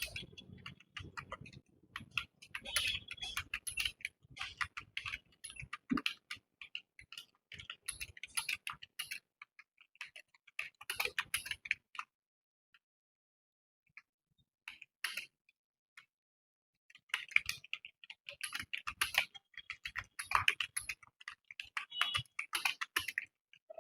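Computer keyboard being touch-typed in quick runs of key clicks during a typing test. The typing nearly stops for a few seconds about halfway through, with only a few single keystrokes, then picks up again.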